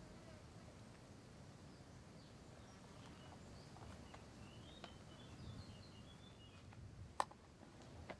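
Near silence: faint outdoor ambience with a few faint high chirps between about three and six seconds in, and one sharp click about seven seconds in.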